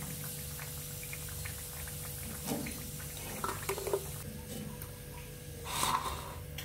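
Hot oil crackling gently in a frying pan as pieces of fried snake skin are lifted out with a metal spoon, with a few spoon scrapes and knocks against the pan and a louder bump near the end.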